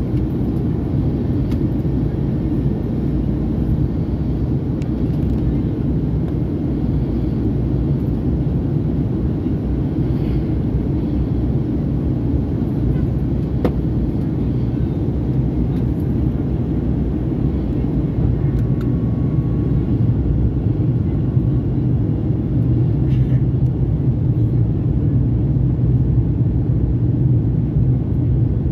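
Steady low cabin rumble of a Fokker 100 airliner in flight, its rear-mounted Rolls-Royce Tay turbofans and the airflow heard from inside the cabin, growing slightly louder in the last few seconds.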